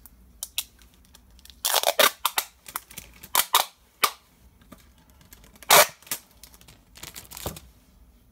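A piece of adhesive tape being pulled off a roll and torn: a series of short, sharp rips and clicks. The loudest come about two seconds in and just before six seconds.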